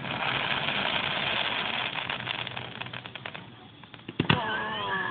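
Fireworks crackling and hissing in a dense shower for about three seconds, then thinning to scattered crackles. Two sharp bangs follow about four seconds in.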